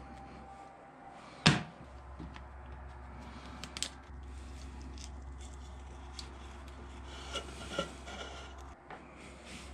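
Hard parts being handled and worked: one sharp knock about a second and a half in, then lighter clicks and scraping, over a steady low hum.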